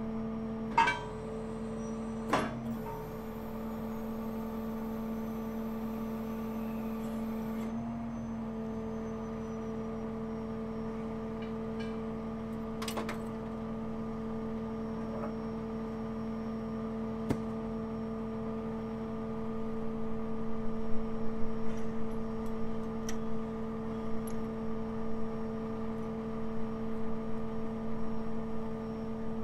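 Crane truck's engine running steadily, a constant hum, with a few sharp clicks and knocks; from about two-thirds of the way in, louder uneven rumbling joins it while the outrigger is being set.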